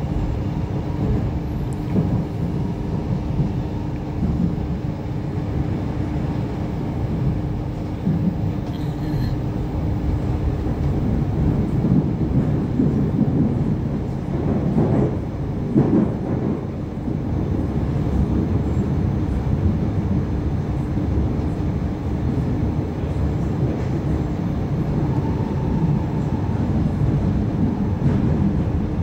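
Inside an Irish Rail 8520 class DART electric train under way: steady rumble of the wheels on the track, with a steady hum that stops about a third of the way through and a couple of knocks near the middle.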